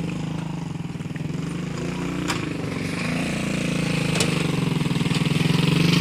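A vehicle engine running steadily, slowly growing louder, with two short clicks partway through.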